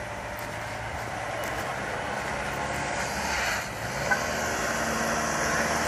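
Car engine running under throttle, its steady note slowly getting louder, as a car tries to drive up an icy hill. A single sharp tick about four seconds in.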